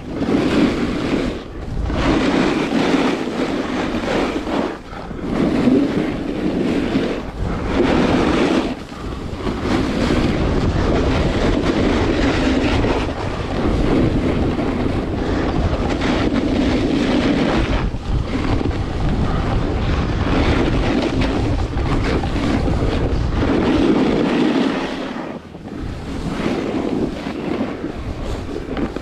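Wind rushing over the camera's microphone while skiing fast downhill, mixed with skis scraping over hard-packed piste snow. The noise drops away briefly several times, between turns.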